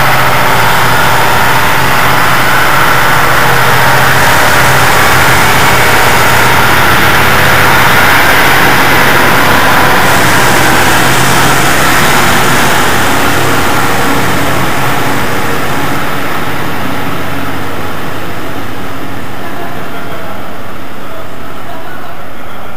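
Two-car diesel multiple unit running past and drawing away, its underfloor diesel engines droning with wheel-and-rail noise. Loud at first, it fades gradually over the last third as the train recedes.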